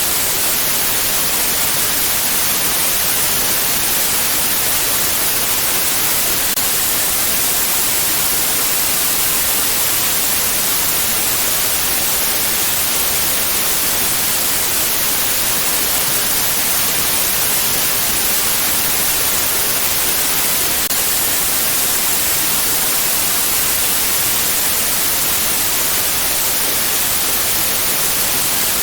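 Steady white noise: an even, unbroken hiss with most of its energy in the high frequencies.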